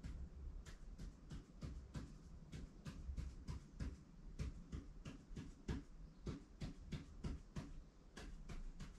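Ink pen drawing short vertical tally marks on paper: a quick, slightly irregular run of short scratching strokes, about three to four a second, with a brief pause near the end.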